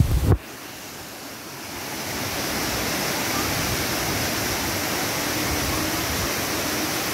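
Waterfall rushing: a steady, even hiss of falling water that grows louder about two seconds in and then holds. A brief low rumble at the very start cuts off suddenly.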